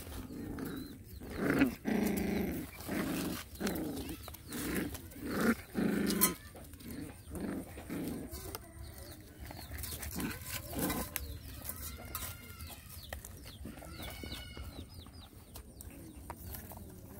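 Puppies play-growling while wrestling: a run of short, low growls and grunts every half-second or so through the first half. After that it goes quieter, with a few high, squeaky calls.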